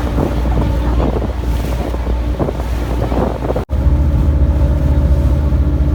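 Ferry launch's engine running steadily, with wind buffeting the microphone. The sound cuts out sharply for an instant about three and a half seconds in, and the engine hum is louder after it.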